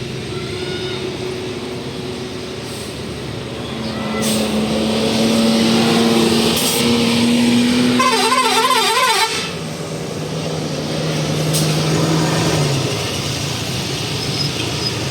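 A bus's 'telolet basuri' musical air horn playing a tune of long held notes at changing pitches, with a rapid warbling trill about eight seconds in, over the sound of the vehicle.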